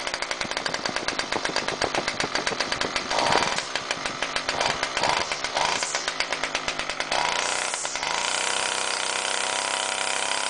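Ryobi 32cc gas string trimmer engine running just after a cold start that caught on the second pull, after about a month unused. It runs with a fast, uneven pulsing, then revs up about seven seconds in and holds the higher speed.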